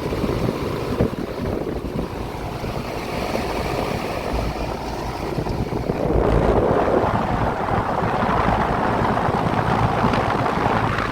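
Heil central air conditioner's outdoor condensing unit running, its compressor and condenser fan making a steady rushing noise that grows louder about six seconds in.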